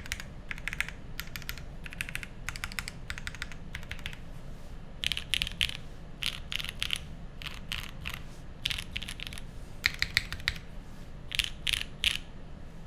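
Typing on an SSTT60 prototype mechanical keyboard with linear Cherry MX Black switches, GMK keycaps, a polycarbonate plate and an aluminium case. The keystrokes come in short runs of several presses, with brief pauses between the runs.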